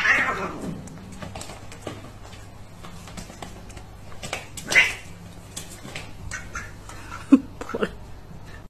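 A cat and a duck scuffling on a hard floor: a loud animal cry right at the start, then scattered taps and scrapes, another short cry about five seconds in, and a few short low calls near the end.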